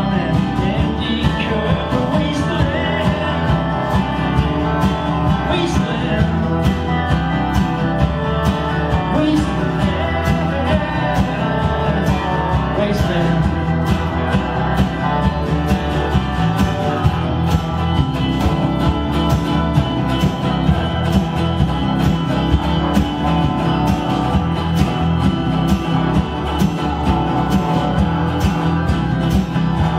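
Live folk-country band playing with a steady drum beat: strummed acoustic guitars, an electric guitar, a bass guitar and a Weissenborn lap slide guitar.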